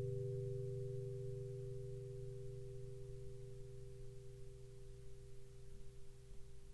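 The final chord of instrumental background music ringing out and slowly fading away to near silence.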